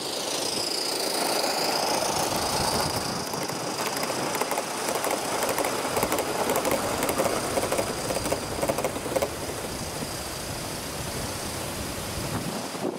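Gauge 1 model train rolling past on the garden track, its wheels clicking over the rail joints, loudest in the middle seconds. A steady high tone runs under it.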